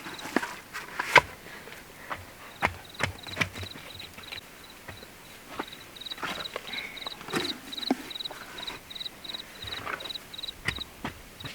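An insect chirping steadily in short high pulses, about three chirps a second, with scattered sharp knocks and rustling over it.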